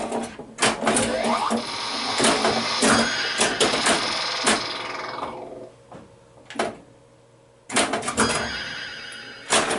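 1981 Bally Flash Gordon pinball machine in play: sharp clacks of solenoids, bumpers and flippers as the ball strikes the playfield, mixed with electronic sound effects and scoring tones. The sound effects fade out about five seconds in, and after a short quiet spell a new run of sharp clacks comes near the end.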